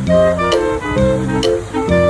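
Background music: instrumental track with pitched notes changing about twice a second over a steady beat.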